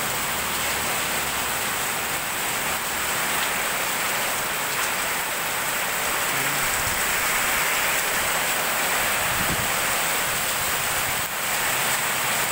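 Heavy downpour: a steady hiss of rain pounding the street and awnings, with runoff pouring off the awning edge.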